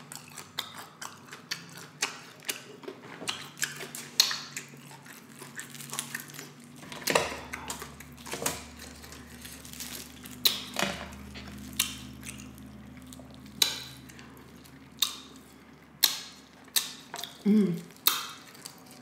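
Crispy fried chicken wings being bitten, torn apart and chewed: irregular sharp crunches and crackles of the fried skin, one after another.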